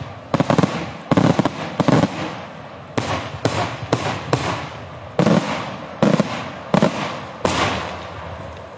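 Daytime aerial fireworks: a dozen or so sharp bangs from shells bursting overhead, coming irregularly every half second to a second. Each bang has an echoing tail. The last comes about a second before the end and fades away.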